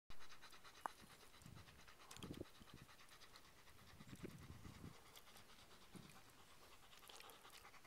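A dog panting faintly and rapidly, with a few soft low puffs and one sharp click a little under a second in.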